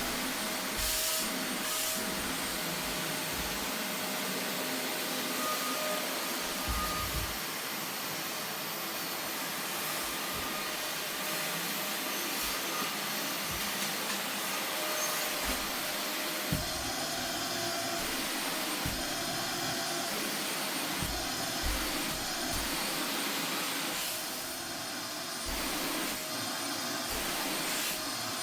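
Vacuum cleaner running steadily, its nozzle worked over sofa upholstery, with scattered soft low knocks as it is moved.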